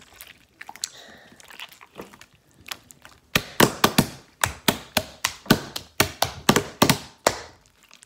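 Jelly-cube slime being squeezed and pressed by hand, giving sharp squishy crackles. They are faint and scattered at first, then come as a fast run of several a second from about three seconds in until about seven seconds.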